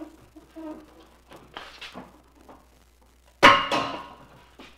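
Plastic front bumper cover of a Toyota FJ Cruiser being pulled off by hand: light clicks and rustling, then one loud sharp snap about three and a half seconds in that rings briefly as a retaining clip lets go.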